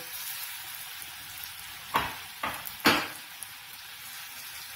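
Hot cooking oil in a kadhai sizzling steadily as handfuls of buckwheat-flour-coated raw peanuts are dropped in to deep-fry. Three sharp flares of sizzling come about two to three seconds in as more peanuts hit the oil.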